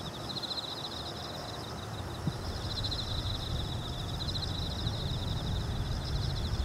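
Insects trilling in a steady chorus of fast, pulsing high notes, over a low rumble that builds from about two seconds in.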